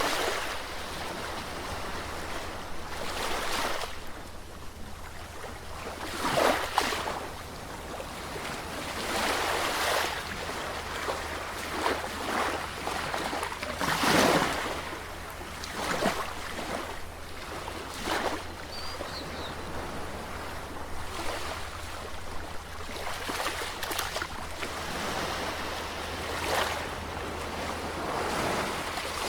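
Ocean surf: waves breaking and washing in, swelling and fading every few seconds, with louder breakers about six seconds in and about halfway through.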